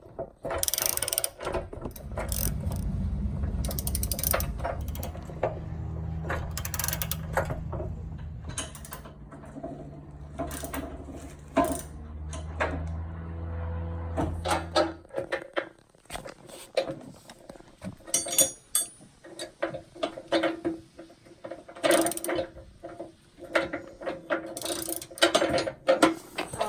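Socket ratchet wrench clicking in repeated runs as bolts are turned, with sharp clicks and clanks of the tool throughout. A low steady hum runs underneath until about halfway through, then stops suddenly.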